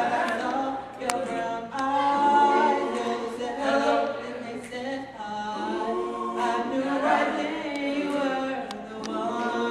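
A small group of teenage boys singing a cappella.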